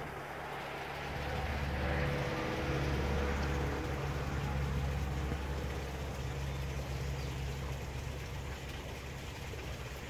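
Low motor hum with a few steady pitched tones, like a passing engine, swelling about two seconds in and then slowly fading.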